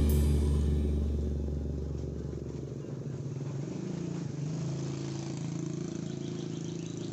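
Background music fading out over the first couple of seconds, leaving small motorcycle engines running: a steady low engine note, with motorbikes passing close by.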